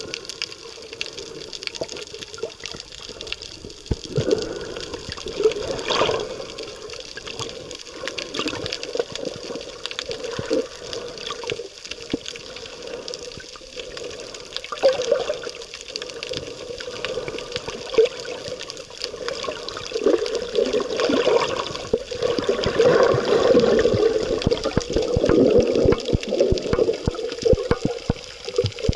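Underwater sound picked up by a camera below the surface: a continuous wash of moving water and bubbling, with many small clicks and crackles, growing louder toward the end.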